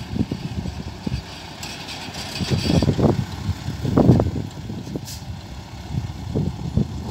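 Loaded dump truck's diesel engine running as it drives and turns, an uneven low rumble that swells loudest about three and four seconds in.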